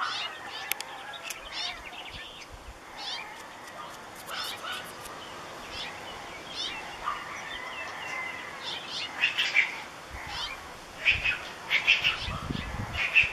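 Birds chirping and singing in short, quickly repeated notes, busier and louder in the second half.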